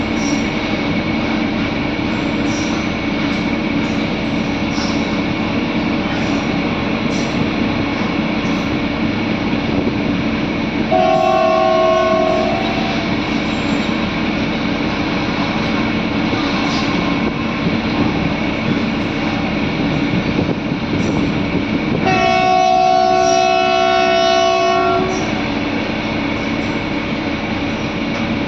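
Train running with a steady rumble and rattle; its horn sounds twice, for about two seconds around 11 seconds in and for about three seconds around 22 seconds in.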